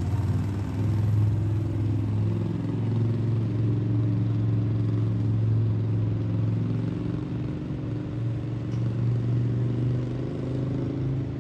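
A large road vehicle's engine running with a steady low hum that shifts slightly in pitch about two-thirds of the way through, over street traffic.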